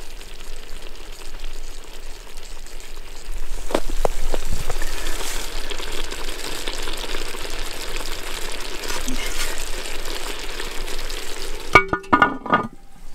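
Meat and sauce sizzling in a cast iron Dutch oven, louder from about three and a half seconds in, with a few light knocks. About a second before the end a short pitched sound breaks in, with brief gaps.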